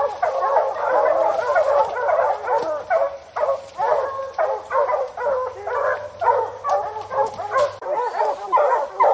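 A pack of bear hounds baying and barking together at a black bear up a tree. Many voices overlap in a dense chorus at first, then thin into separate barks, about two or three a second.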